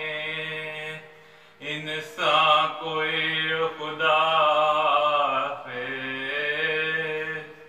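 A man's solo voice reciting a salam, an Urdu mourning elegy of Muharram, in a slow chanting melody of long drawn-out notes, with a short pause for breath about a second in.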